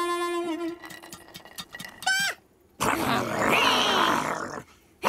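Cartoon creature vocal effects: a held note fading out, a short squeal falling steeply in pitch about two seconds in, then a longer rough cry after a brief gap.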